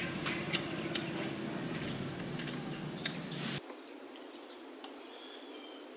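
Small clicks and taps as the drain plug is threaded back into a Yamaha NMAX scooter's engine by hand, with the last oil dripping into the catch pan. A low background hum cuts off suddenly about three and a half seconds in.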